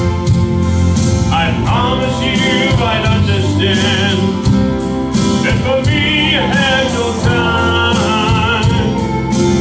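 Gospel song with steady instrumental backing and a beat; a singer's voice with vibrato comes in about a second in and holds long, wavering notes.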